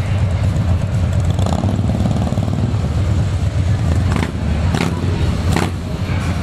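Several Harley-Davidson V-twin motorcycles idling and rumbling at low speed as riders maneuver them, with a few short sharp sounds between about four and six seconds in.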